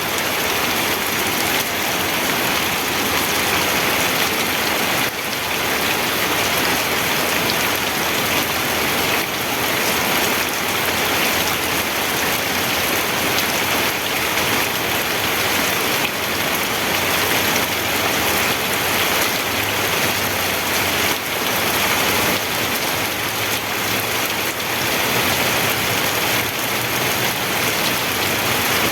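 Steady rain falling, heavy and even.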